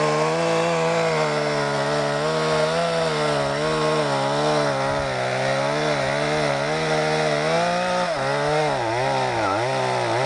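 Chainsaw running at high revs as it cuts into the wood of a tree, its engine pitch wavering as the chain loads in the cut. Near the end the revs sag and pick up again several times.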